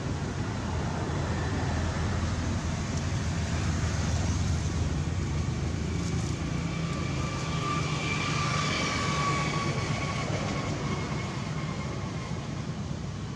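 Steady low rumble of a distant engine, with a faint high whine that comes in about halfway and fades near the end.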